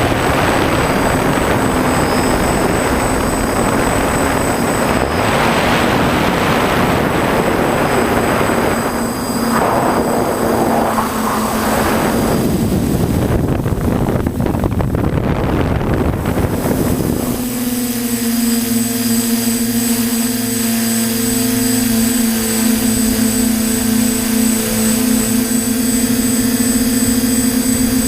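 TBS Discovery quadcopter's electric motors and propellers buzzing in flight, under heavy rushing noise at first. About two-thirds of the way through the rush drops away, leaving a clear, steady motor hum.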